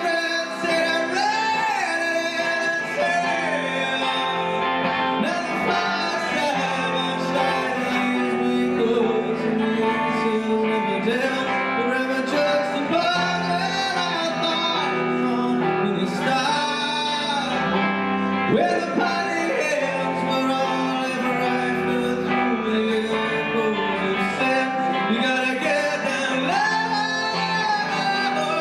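Male singer singing an indie rock song with guitar accompaniment, his voice gliding through long held notes.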